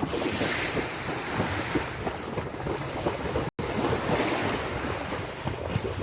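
Wind buffeting the microphone over a steady rushing noise like surf, broken by a split-second gap about halfway through.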